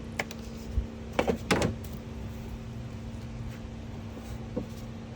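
A few short clicks and knocks from parts and connectors being handled and refitted in a car's engine bay, most of them in a quick cluster in the first two seconds and one more near the end, over a steady low hum.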